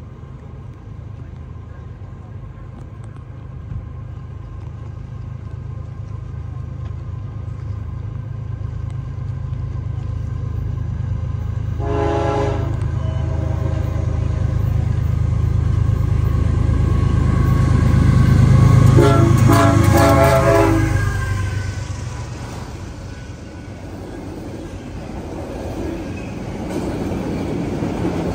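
CSX freight train's diesel locomotives approaching and passing. The engine rumble grows louder and peaks about 19 s in, then drops away as the locomotives go by and the cars start rolling past. The horn sounds briefly about 12 s in and again in short blasts around 19 to 21 s in.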